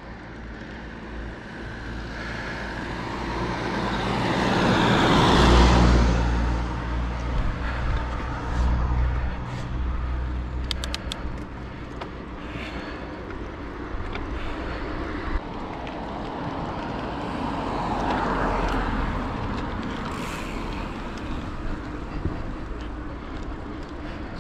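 A car passes close by about five seconds in, its engine and tyre noise swelling and then fading, and a second vehicle passes more faintly later on. A low rumble runs underneath.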